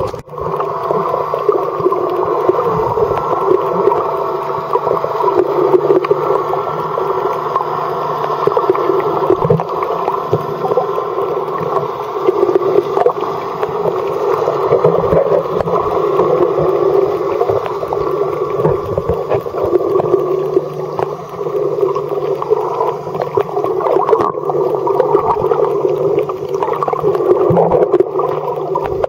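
Muffled underwater sound picked up by a submerged camera: a steady droning hum with water noise and a few light knocks.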